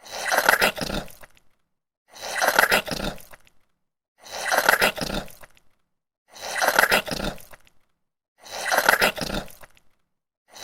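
Wet mud squishing and bubbling, played five times as identical bursts about two seconds apart. Each burst lasts just over a second, with silence between.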